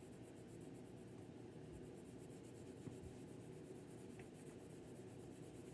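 Faint scratching of a purple coloured pencil shading lightly on paper, barely touching it.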